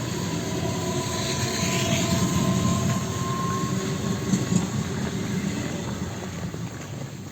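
Electric multiple-unit train running on the rails: a steady rumble of wheels with a faint motor whine, swelling about two seconds in and easing off toward the end.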